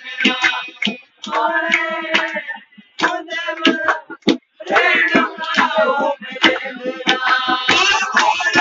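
Pahari folk song playing: a singer over a regular beat, as dance music.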